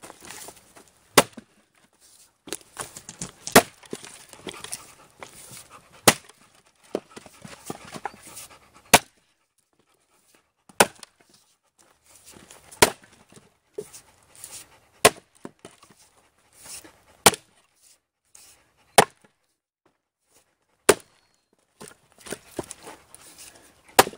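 A Fiskars splitting axe chopping Douglas fir firewood rounds, with about eleven sharp strikes roughly one every two seconds, each splitting pieces off the round.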